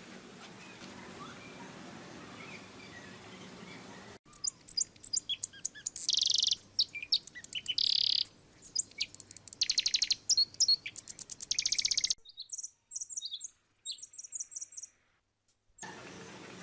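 Small birds chirping and trilling rapidly in high-pitched calls, cutting in abruptly about four seconds in after faint background hum, growing sparser near the end and then stopping suddenly.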